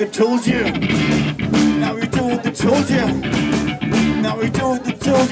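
Live rock band playing loud, with electric bass and guitar playing a repeating riff over steady drum hits.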